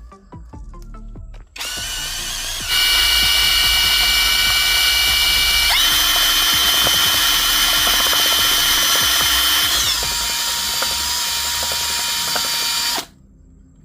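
Electric drill running with a steady whine. It starts about a second and a half in, speeds up twice with its pitch stepping higher, drops back to a lower pitch, and stops suddenly near the end.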